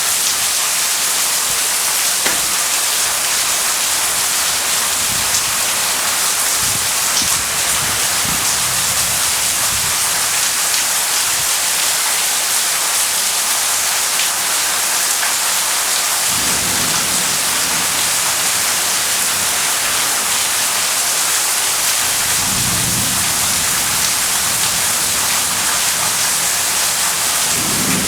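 Heavy rain falling steadily in a thunderstorm, with low thunder rumbling three times in the second half.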